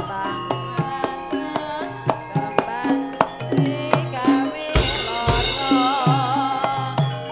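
Live Javanese gamelan ensemble playing: bronze metallophones and gongs ringing over kendang hand-drum strokes in a lively, steady pulse. A deep low stroke sounds about five seconds in, and a wavering held melody line rises above the ensemble just after it.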